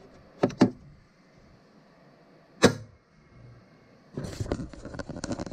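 Hard clicks from parts of a Carvewright CNC carving machine being handled: a quick pair of clicks, then a single louder click. About four seconds in, a rapid clattering rattle starts.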